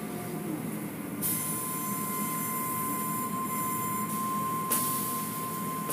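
Automatic car wash tunnel machinery running: a steady rumble from the conveyor and wash equipment, with a steady high whine. A loud spray hiss switches on about a second in, drops out briefly around four seconds, then comes back.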